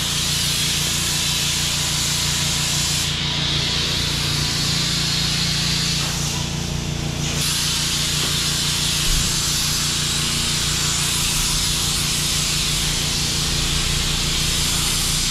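High-pressure foam lance at a self-service car wash spraying snow foam onto a car body: a steady loud hiss of spray over a constant low hum. The spray briefly thins about six seconds in.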